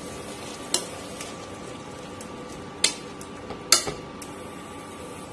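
Spoon stirring chopped brinjal and tomato in an aluminium pot, knocking against the pot three times, over a steady faint sizzle of the vegetables cooking.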